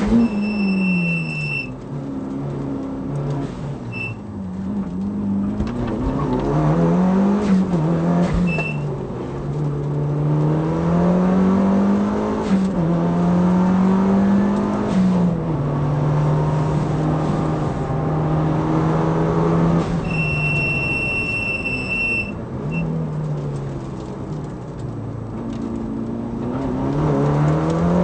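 Mitsubishi Lancer Evolution's turbocharged four-cylinder engine at racing pace, heard from inside the cabin: the note climbs and drops back again and again as it runs through the gears, holding steady for a few seconds about halfway through. A high steady squeal cuts in twice, briefly near the start and for about two seconds later on.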